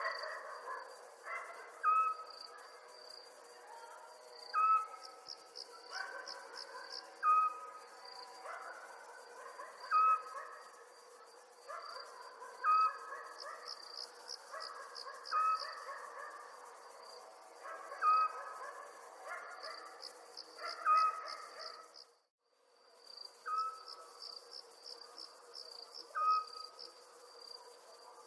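Night ambience: crickets chirping in pulsed trills over a steady insect hum, with a short, louder animal call repeating about every two and a half seconds. All the sound drops out for a moment about 22 seconds in.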